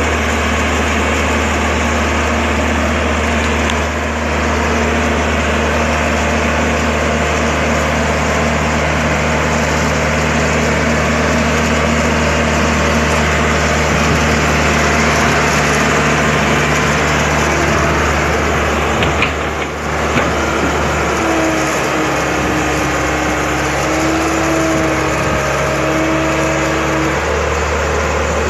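Heavy excavator's diesel engine running steadily. About two-thirds of the way through, a wavering higher whine joins in for several seconds.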